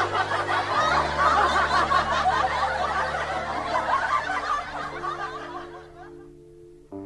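Many people laughing and chuckling over background music with sustained low notes; the laughter fades out a little after the middle.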